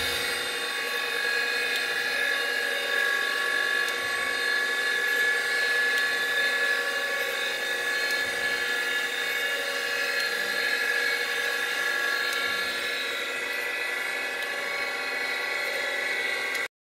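Surface grinder running with a steady high-pitched whine from its spindle and wheel, grinding steel test blocks held on its magnetic chuck. Cuts off abruptly near the end.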